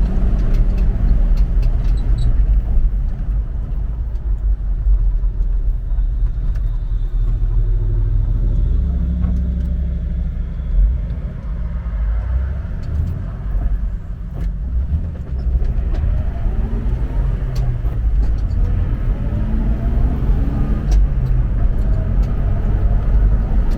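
Jeep Wrangler TJ driving on the road: a steady low engine and road rumble, with the engine note rising and falling a couple of times as the speed changes.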